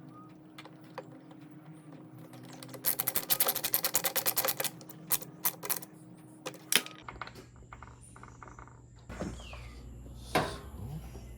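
Small hard clicks and knocks of plastic parts being handled during reassembly of a mini ice maker. About three seconds in there is a quick run of rapid clicks lasting under two seconds, then scattered single clicks.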